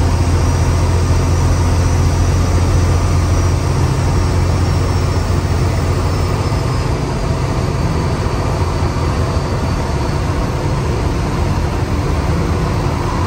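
Cab noise of a 12-valve Cummins diesel in a 1970 Ford F250 cruising at highway speed while towing a trailer: a steady low engine drone with road and wind noise, easing off slightly in the second half.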